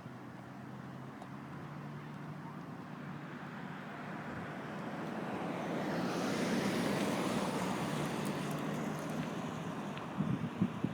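A road vehicle driving past: a low engine hum and tyre noise that grow louder to a peak about two thirds of the way through, then ease off. A few low thumps come near the end.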